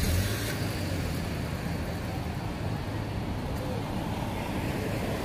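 Steady outdoor traffic noise: an even rush of passing cars with no single sound standing out.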